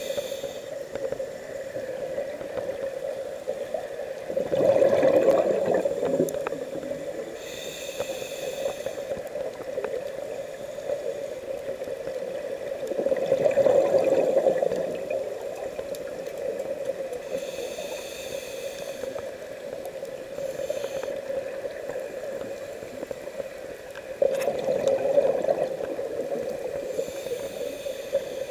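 Scuba diver breathing through a regulator, heard underwater: three loud bubbling exhalations about ten seconds apart, each followed by the hiss of an inhalation, over a steady hum.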